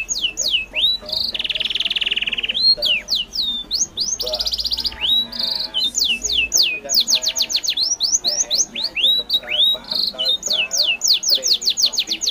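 Birds calling close by: rapid runs of sharp, high sweeping chirps, several a second, broken every few seconds by short buzzy trills.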